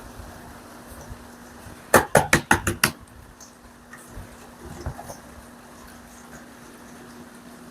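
A quick run of about six sharp knocks, hard objects striking each other, about two seconds in, with a few fainter knocks after and a steady low hum underneath.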